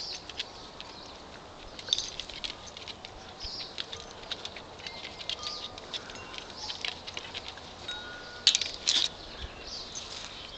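Queensland heeler and dachshund puppy play-wrestling on grass: the dogs' metal collar tags jingle in short, irregular tinkles, with scuffling, and the busiest jingling comes near the end.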